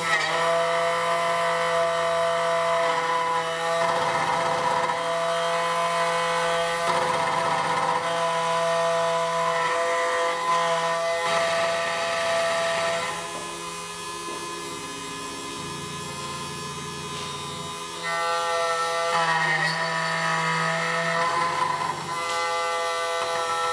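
SEC-E9 CNC key cutting machine milling a Honda HON66 key blank: the spindle motor whines steadily while the clamp is driven under the cutter, its low hum changing pitch in steps as the axes move. The cutting noise eases off for a few seconds after the middle, then picks up again.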